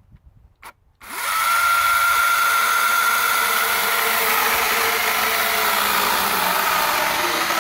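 A 48-volt battery-powered electric chainsaw with a 14-inch bar. After a short click, it starts about a second in and runs steadily at speed, a high whine over the rasp of the chain cutting through a log.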